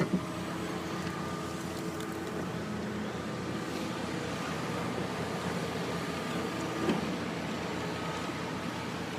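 Heavy diesel construction equipment running steadily, an excavator digging out hard shale with a concrete pump working on site. There is one brief louder knock about seven seconds in.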